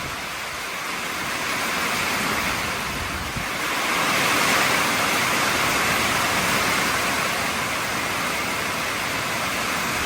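Thunderstorm wind blowing and gusting through an RV, mixed with heavy rain: a steady rushing that swells about four seconds in.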